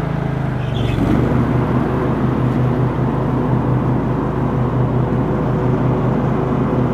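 Murray riding lawn tractor engine running steadily under way; about a second in, as a lever is worked, the engine note gets louder and busier, with a brief hiss.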